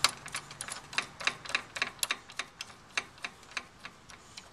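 Irregular sharp metal clicks and taps, a few a second and getting fainter toward the end, as a nut and the steel brake band hardware of a walk-behind mower are fitted together by hand.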